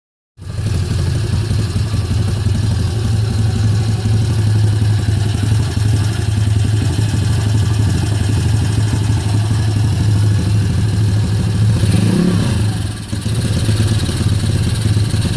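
Kayo YX140 pit bike's single-cylinder four-stroke engine running with the throttle held still, its revs hunting up and down between about 2,500 and 1,500 rpm instead of holding steady. It falters briefly about twelve seconds in. This is the owner's complaint of floating revs and a sneezing, stumbling engine.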